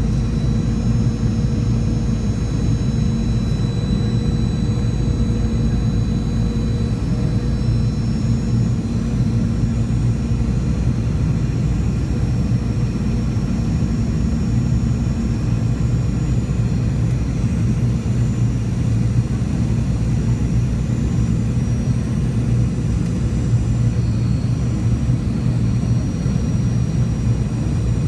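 Steady cabin noise inside a Boeing 717 on final approach: a constant low drone of airflow and the rear-mounted Rolls-Royce BR715 jet engines, with faint high-pitched whines that shift slowly in pitch.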